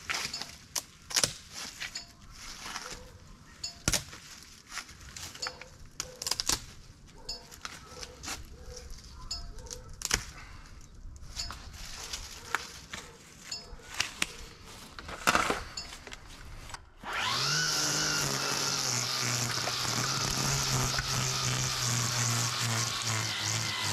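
Scattered sharp metallic clinks and pings from a hot mower muffler snapping as the metal cools and changes shape. About two-thirds of the way through, a power tool starts abruptly and runs steadily, much louder than the clinks.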